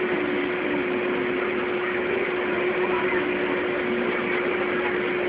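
Electric air blower keeping an inflatable play structure inflated, running with a steady hum.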